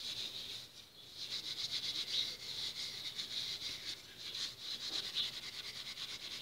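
Steel wool scrubbing a small aluminium stove burner cap by hand: a fast, rasping back-and-forth rub with a brief pause about a second in. The soapy steel wool is sticking to the metal as it goes.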